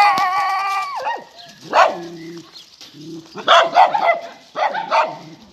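Puppies barking and yipping in play: a long high-pitched whine that drops in pitch at its end, then a series of short, sharp barks.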